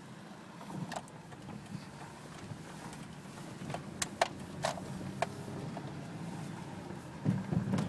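Subaru H6 3.0 flat-six car running with a steady low hum, broken by several short sharp clicks in the middle and a louder low rumble near the end.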